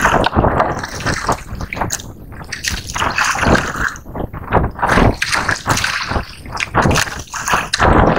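Sea water sloshing and splashing in irregular surges.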